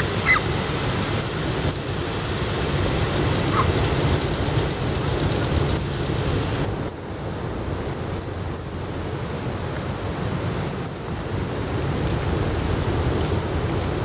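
Steady rush of breaking surf mixed with wind noise on the microphone, with a few short chirps near the start. The upper hiss drops off about halfway through.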